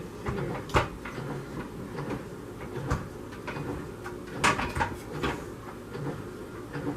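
Hard plastic knocks and clicks as a CO2 cylinder is handled and fitted into a SodaStream Fizzi sparkling water maker: a few sharp taps scattered over several seconds, the loudest under a second in and about four and a half seconds in.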